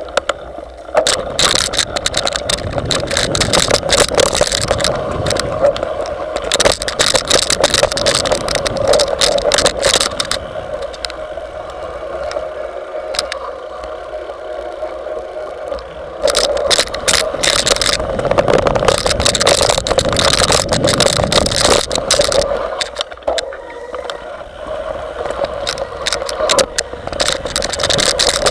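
Mountain bike rolling down a dirt forest trail, heard through a handlebar-mounted camera: constant rattling and knocking over roots and bumps above a steady buzz, easing off twice for a few seconds.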